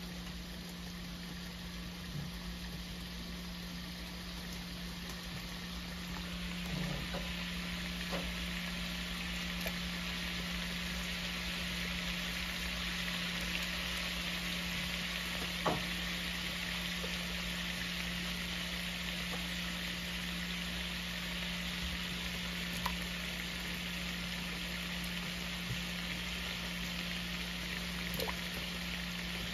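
A large stockpot of seafood-boil broth at the boil gives a steady bubbling hiss that grows slightly louder. A few small knocks and splashes come as cut red potatoes are dropped in one at a time. A steady low hum runs underneath.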